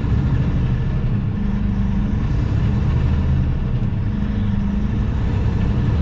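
Steady drone of a semi-truck's diesel engine and road noise, heard inside the cab while driving, with a low hum whose pitch wavers slightly.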